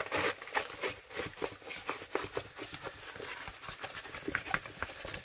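A rolled diamond painting canvas being re-rolled the other way to flatten it: its coated fabric and plastic cover paper rustle and crinkle, with many small irregular crackles and taps.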